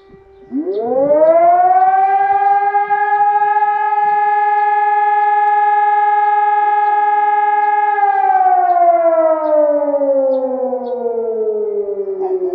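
Civil defence siren starting up: its wail rises quickly to a steady high tone about half a second in, holds for several seconds, then begins a slow falling wind-down near the end. In Bulgaria this is the June 2 memorial siren, sounded for Hristo Botev and those who died for the country's freedom.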